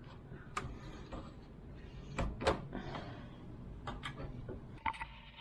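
Several sharp clicks and knocks of a drill and hole saw being handled and tightened, the loudest about two and a half seconds in.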